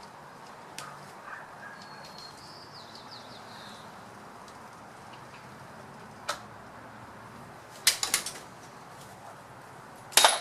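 Hand tools clanking against metal while engine mounts are being unbolted: one sharp clank, then a quick rattle of several about eight seconds in, and the loudest clank near the end, over a steady background hiss. A short faint run of high chirps about two seconds in.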